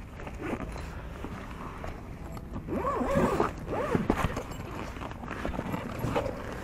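A bag's zipper pulled in two quick runs, about three and four seconds in, after a few footsteps on pavement.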